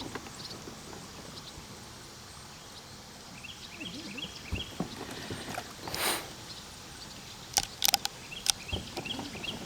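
Outdoor river ambience with repeated series of small high chirps. A soft whoosh about six seconds in, then a few sharp clicks and knocks near the end.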